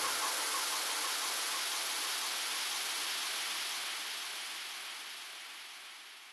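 A steady, even hiss of noise that fades out gradually toward the end.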